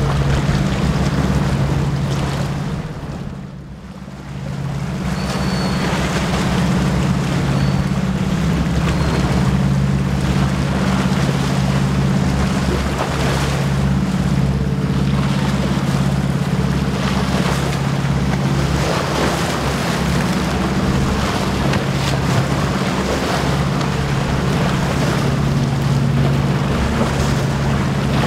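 Inboard engines of a Cruisers Yachts 540 Sports Coupe motor yacht under way, a steady low drone, over the rush of water from its hull and wake. The sound drops briefly about three seconds in.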